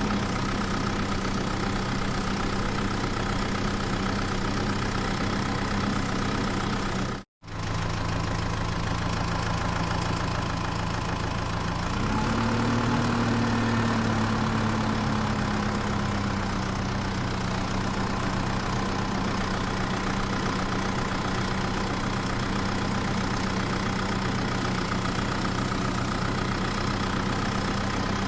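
Engine idling steadily, cut out for an instant about seven seconds in. About twelve seconds in it revs up, and its pitch slowly sinks back to idle over the next few seconds.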